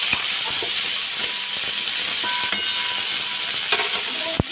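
Dried prawns sizzling in hot oil with turmeric and salt in a wok, a steady frying hiss, as a metal spatula stirs them and knocks against the pan a few times, most sharply near the end.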